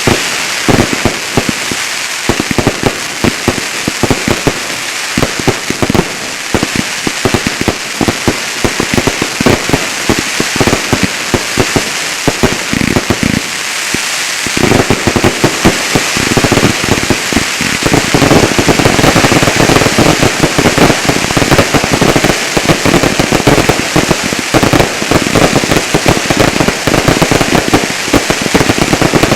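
Fireworks finale: a continuous rapid barrage of bangs over a crackling hiss. It grows denser and louder about halfway through.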